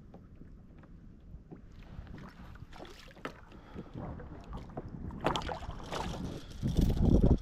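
A small hooked fish splashing and thrashing at the water's surface beside a kayak, loudest near the end, with wind on the microphone.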